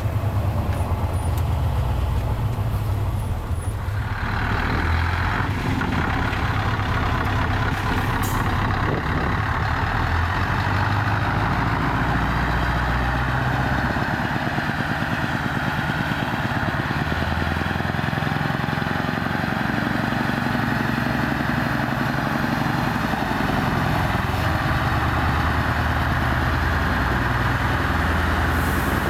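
Scania 164 V8 truck engine running at low speed as the truck drives slowly by and pulls into a hall, its low rumble rising and falling with the throttle. About 4 seconds in, the sound changes from inside a cab to outside the truck. A short hiss of air comes about 8 seconds in.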